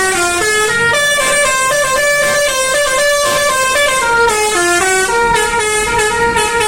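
Bus 'telolet' horn, a multi-tone musical horn, playing a tune of quickly changing notes, with one lower note held for a few seconds near the middle.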